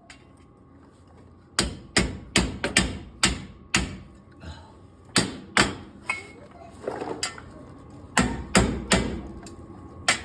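Hammer blows on a chisel wedged behind a stuck front wheel hub assembly, driving it off the steering knuckle. About a dozen sharp metal strikes come in three bursts after a quiet first second or so.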